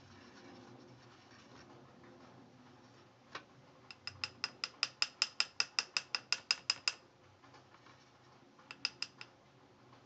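A small mechanism clicking rapidly like a ratchet: one click, then about twenty evenly spaced clicks at roughly seven a second for about three seconds, and three or four more near the end.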